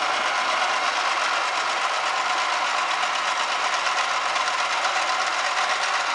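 Steady mechanical buzz of a small mains-powered appliance running while it rests on a mat of rusty metal mattress springs, the springs rattling with its vibration.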